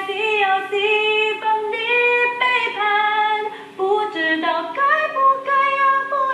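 A woman singing a Mandarin song in long held notes, some sliding between pitches, heard through a television's speaker.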